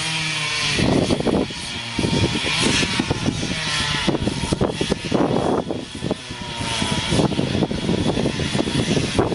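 Chainsaw engine revving up and down repeatedly, with rough bursts of noise between the revs.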